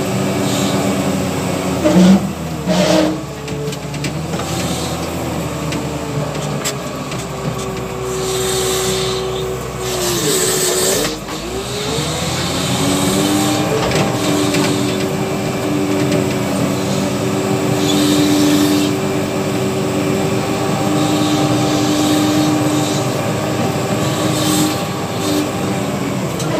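W130 wheel loader's diesel engine running as the machine drives, with two loud knocks about two and three seconds in. About eleven seconds in, the engine note dips and then comes back up.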